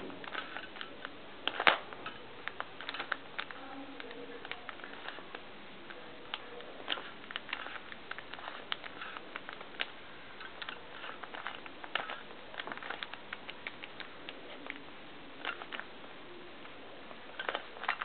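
A 3x3 Rubik's cube with a white plastic body being turned by hand: quick, irregular plastic clicks and clacks as the layers are twisted and snap into line, with one sharper click about two seconds in.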